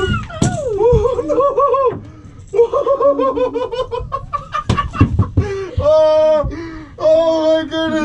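High-pitched, excited laughter in rapid bursts, with a few sharp knocks about halfway through and long, high, wavering cries near the end.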